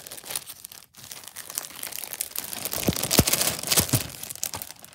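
Thin plastic bag crinkling and rustling as it is handled and pulled off a new calendar, loudest about three to four seconds in with a few sharp crackles.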